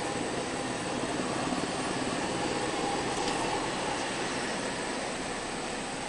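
GX216 drum wood chipper, driven by a large electric motor, running with a steady, even mechanical noise.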